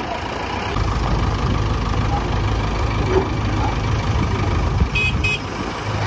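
The diesel engine of a JCB 3DX backhoe loader runs under load with a low, steady rumble as its front bucket pushes a heavily loaded, bogged-down truck. Two short beeps sound near the end.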